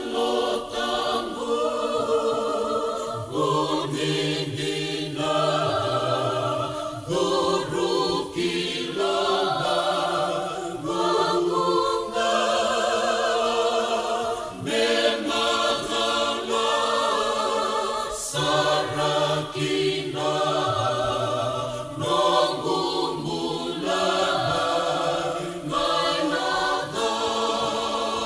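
A gospel choir singing a Fijian hymn in held, multi-part chords, with a low bass line under the upper voices.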